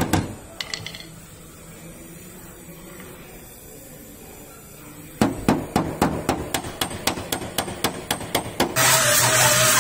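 Hammer tapping in fast strikes, about six a second, after a pause of a few seconds. Near the end a power tool starts up and runs with a steady whine.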